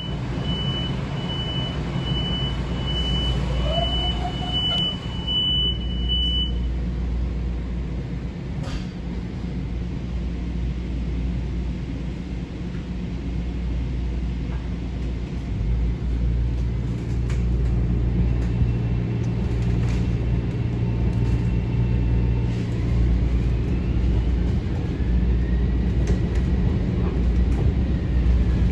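Steady low rumble inside a Metro-North M7A electric commuter railcar. About nine short high electronic beeps repeat less than a second apart over the first six seconds, and faint rising whines come in near the end.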